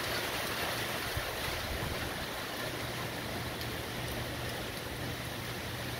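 Heavy rain and strong wind of a hurricane: a steady rushing hiss.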